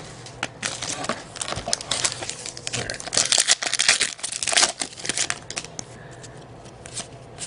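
Plastic wrapper of a trading-card pack being torn open and crinkled, an irregular rustling and crackling that is loudest a few seconds in.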